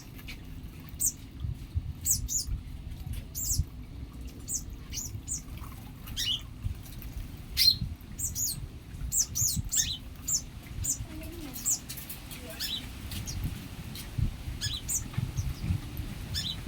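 Several white-eyes (pleci) giving many short, high chirps in quick irregular bursts while squabbling over food, with low fluttering and bumping from their movement underneath.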